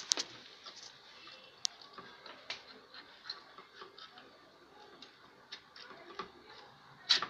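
Irregular light clicks and taps of a plastic motor bracket and metal plate knocking against metal rods as a small 12 V motor mount is fitted onto a homemade drill press stand. There is a sharp click right at the start, another about a second and a half in, and a louder cluster of clicks near the end.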